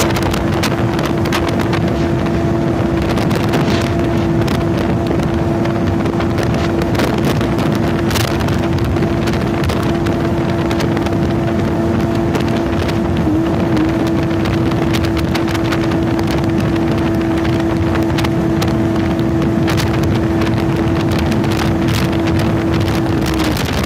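Polaris MSX 140 personal watercraft engine running at a steady pitch under way, with heavy wind on the microphone and water noise. The engine note dips briefly about 13 seconds in and drops out just before the end.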